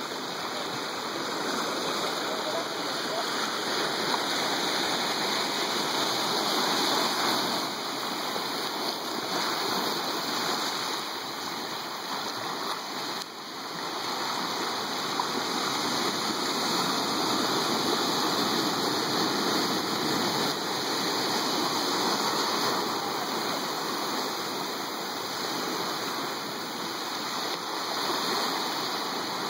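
Ocean surf washing continuously onto a rocky shore, a steady rushing that swells and eases every few seconds.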